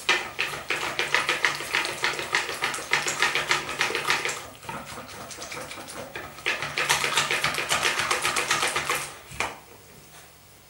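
Wire whisk beating a thin yogurt and crème fraîche mixture in a plastic bowl: fast, rhythmic swishing and clicking of the wires against the bowl at several strokes a second. It stops for about two seconds partway through, starts again, and ends with the whisk laid down a little before the end.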